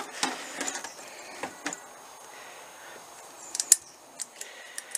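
Light metallic clicks and taps from a motorcycle carburetor float bowl and carburetor parts being handled, scattered through, with a quick cluster of sharper clicks a little after halfway.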